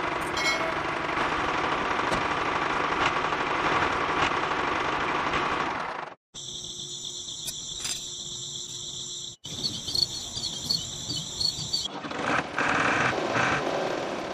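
A small electric gear motor whirring steadily as a handmade toy tractor drives, stopping abruptly about six seconds in. Crickets then chirp in steady high trills for several seconds, before a rushing noise returns near the end.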